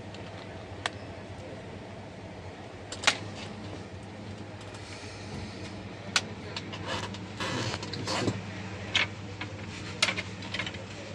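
Steady low electrical hum with a handful of sharp clicks and a stretch of rustling handling noise in the middle.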